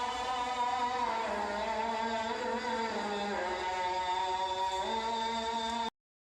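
Music: a chant-like sung melody of long held notes that step up and down in pitch, cutting off abruptly near the end.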